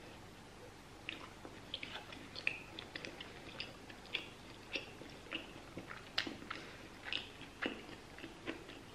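A person chewing a mouthful of pulled pork sandwich: uneven wet mouth clicks, several a second, starting about a second in.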